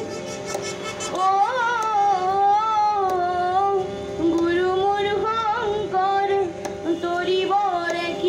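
A woman sings an Assamese Rabha Sangeet song into a microphone over a steadily held harmonium. The harmonium is heard alone at first, and her voice comes in about a second in with a wavering, ornamented melody.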